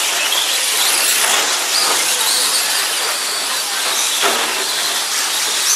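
Radio-controlled short-course trucks running on an indoor dirt track: a steady high hiss with whines from the motors and drivetrains rising and falling as the trucks speed up and slow down.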